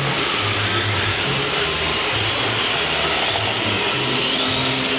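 Electric RC drift cars running on a track: high motor whines that rise and fall with the throttle, over a steady hiss.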